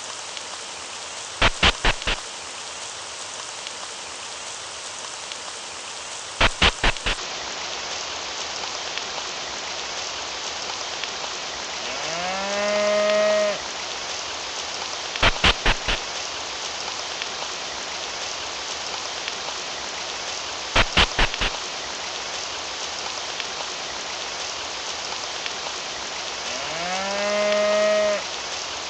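Steady rain falling, with a cow mooing twice, each moo a single long call that rises and then holds. Short runs of four quick knocks come four times.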